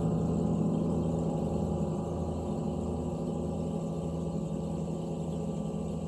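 Large Broder Oetken gong played with a soft felt mallet, ringing with a deep, dense wash of overtones and a pulsing low hum that slowly fades.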